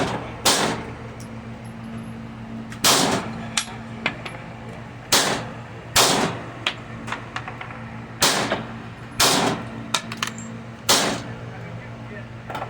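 Gen 5 Glock 26 9mm subcompact pistol firing about seven shots, spaced one to two seconds apart, each a sharp crack with a short ring after it. Fainter shots from other shooters fall between them, over a steady low hum.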